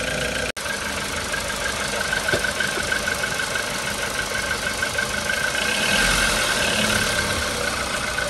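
Warmed-up VW Polo sedan's CFNA 1.6-litre four-cylinder petrol engine idling steadily, a type known for piston-slap knocking. The sound cuts out for an instant about half a second in.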